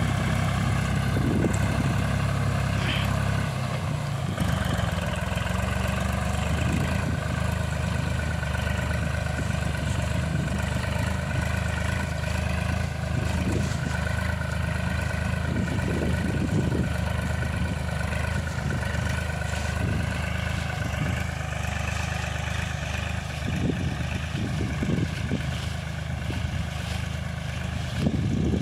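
Tractor engine running steadily as it drives a tractor-mounted boom sprayer through a field crop.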